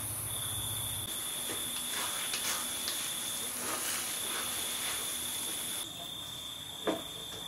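Crickets trilling steadily, one high even tone that breaks off now and then, with a few soft scrapes of a wooden spatula stirring sticky glutinous rice in an aluminium wok. A low hum stops about a second in.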